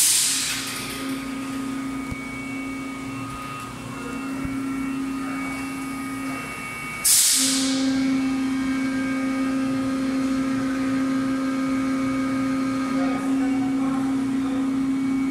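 PET preform injection moulding machine running with a steady hum. A sharp hiss comes at the start and again about seven seconds later, fading quickly each time. The hum dips just before the second hiss and comes back louder.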